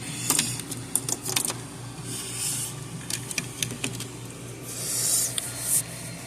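Handling noise: scattered light clicks and taps, with two short stretches of rustling, over a steady low hum.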